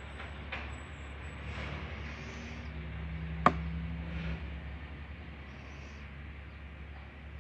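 Steady low background hum, with one sharp click about three and a half seconds in.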